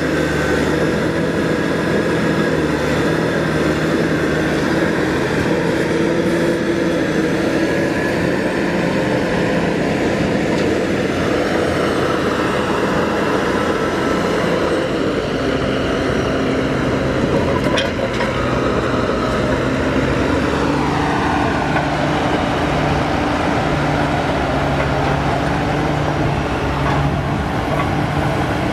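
Caterpillar 983 track loader's diesel engine running steadily as the machine crawls over broken rock, its pitch shifting with load. A falling whine comes about two-thirds of the way through.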